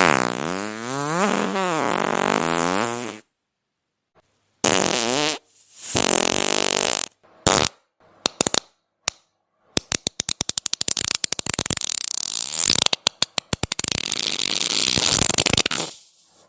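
A string of fart sounds. First comes a long fart of about three seconds whose pitch wavers up and down. After a short pause come several shorter blasts and single pops, then a long stretch of rapid, sputtering popping farts.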